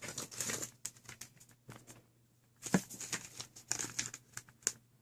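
Irregular rustling and scrubbing bursts with a few light clicks and knocks: leftover mess from an earlier foam experiment being cleaned up by hand.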